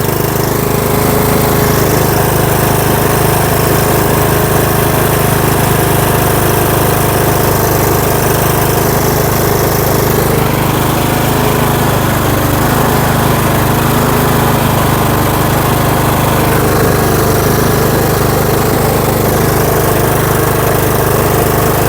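Riding lawn mower engine running steadily under load as it pulls an engineless car on a tow strap, its tone shifting slightly about halfway through.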